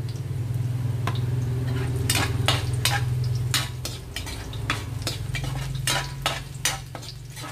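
Shrimp sizzling in a hot steel wok of sautéed garlic, stirred with a metal spatula that scrapes and clanks against the wok many times. A steady low hum runs underneath.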